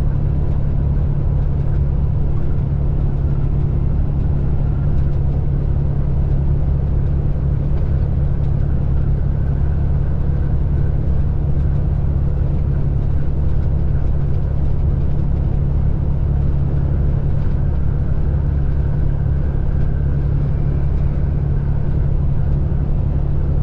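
Semi-truck's engine and road noise heard from inside the cab while cruising on the highway: a steady low drone that holds an even level throughout.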